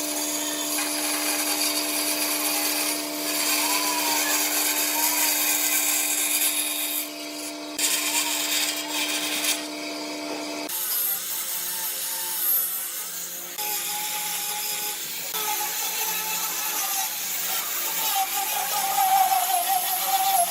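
Electric power tools working wood. A motor hums steadily through the first half, and the sound changes abruptly about halfway through to a different tool noise whose pitch wavers.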